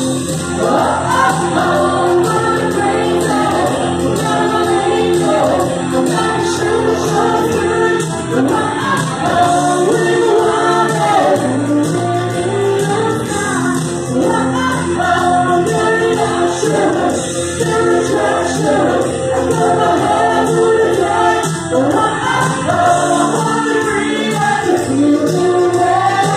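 Live rock band playing: a lead singer singing into a microphone over electric guitar, bass guitar and drums.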